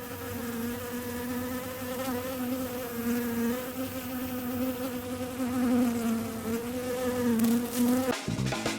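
Bees buzzing in one steady, droning hum that wavers slightly in pitch and cuts off abruptly about eight seconds in, where music begins.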